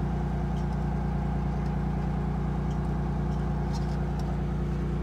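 Wooden fishing boat's inboard engine running steadily, a continuous low drone.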